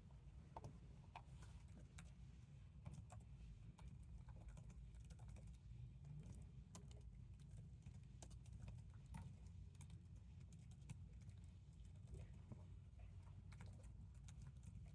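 Faint computer keyboard typing: quick, irregular key clicks over a steady low room hum.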